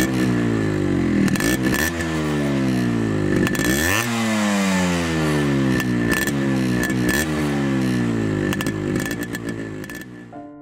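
Yamaha RX100's two-stroke single-cylinder engine revving repeatedly, its pitch climbing sharply and then falling away each time, with the biggest climb about four seconds in. It dies down near the end.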